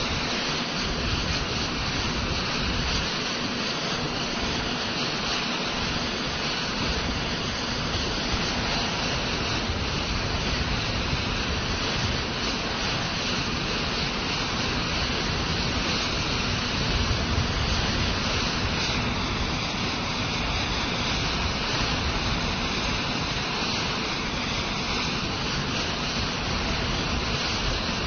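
Air Force One's jet engines idling: a steady, unbroken roar with a constant hum underneath and a hiss on top.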